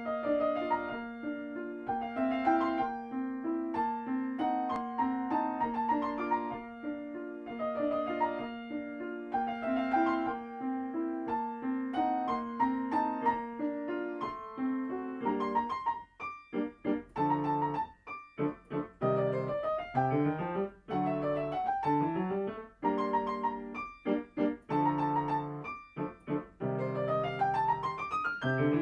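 Solo piano playing a children's étude. For the first half a repeating figure sounds over a held low note; about halfway through it turns to short, detached notes with small gaps. Near the end comes a quick rising run.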